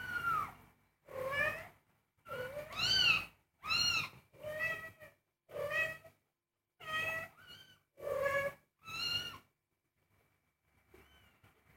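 Young kittens mewing, about ten short rising-and-falling calls one after another, with a pause near the end.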